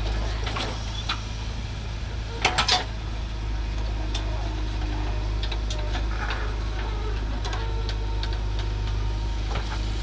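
JCB 3DX backhoe loader's diesel engine running with a steady low drone as the backhoe arm swings and digs. Three sharp knocks in quick succession come about two and a half seconds in.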